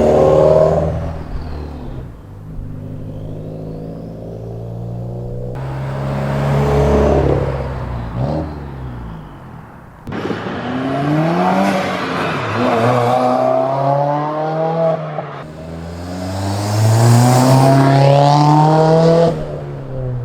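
2015 Subaru WRX's turbocharged flat-four sounding through an Invidia R400 cat-back exhaust with a resonator-deleted mid-pipe, in several short clips joined by abrupt cuts. The engine note climbs under acceleration and drops away again.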